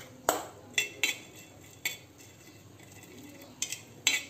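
A metal spoon clinking and scraping against a tawa (flat griddle) while stirring coriander seeds that are being dry-roasted: about six sharp, irregular knocks.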